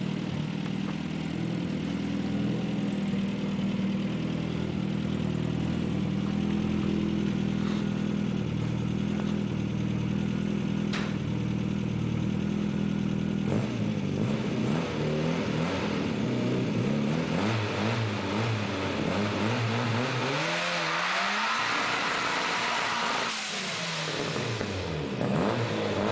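Modified classic Mini's engine idling steadily, then revved up and down as the car pulls away. It climbs in one long rise about two-thirds of the way through and falls back, with a hissing rush at the high revs.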